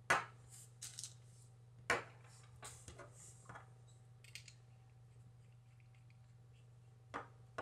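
Scattered light clicks and taps, the sharpest right at the start and about two seconds in, as the opened Eleaf iStick vape mod (bare circuit board and battery) and its metal tank are handled and the tank is fitted to the mod's connector. A faint steady low hum runs underneath.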